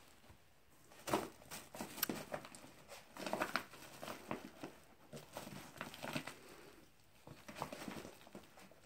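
Crinkling and rustling of a striped shopping bag as a mini pig roots its snout around inside it, in irregular bursts with a short pause about seven seconds in.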